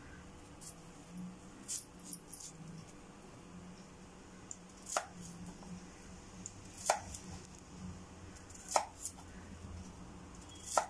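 Kitchen knife cutting through a peeled raw plantain and knocking on the chopping board, a sharp knock about every two seconds from about five seconds in, with a few fainter clicks before.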